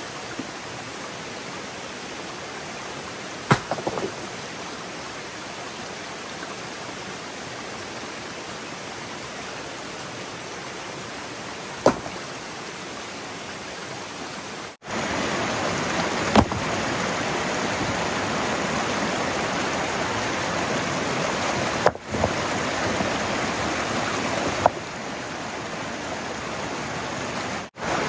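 Steady rush of flowing water. It jumps louder after a cut about halfway through, and a few sharp knocks stand out.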